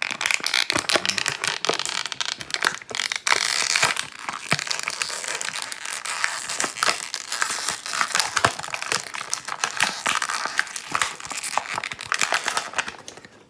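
Thin clear plastic packaging crinkling and crackling in a dense, continuous run as hands handle a small figure's plastic bag and tray, dying away just before the end.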